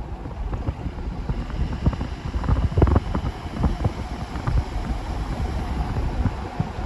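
Wind buffeting the microphone: a low rumble that surges and drops in irregular gusts.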